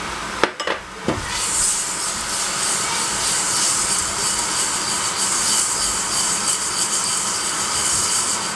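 Israeli pearl couscous swishing and sizzling in hot oil in a stainless steel saucepan as the pan is shaken on the gas burner, a steady hiss after a few light knocks in the first second.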